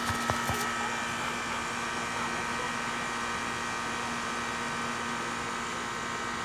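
Steady hum over an even hiss, a few faint clicks shortly after the start.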